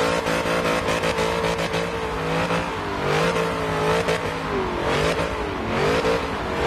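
Car engine revving hard during a burnout, the pitch dropping and climbing again several times over steady tyre noise.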